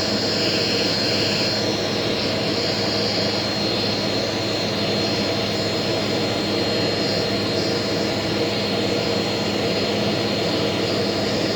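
Eureka vacuum cleaner running steadily with a high whine, its hose and dusting brush being worked over a vacuum filter to suck the dust off it.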